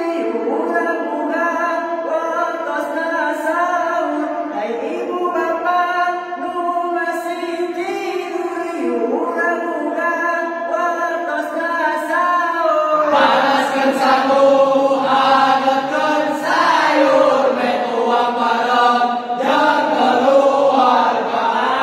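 A group of young men singing a cappella together in long held notes. About 13 seconds in it turns louder and fuller, into a rhythmic chant.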